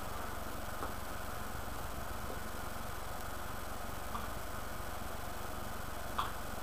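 Steady hum and hiss at an even level, with three faint short clicks: about a second in, past the middle, and near the end.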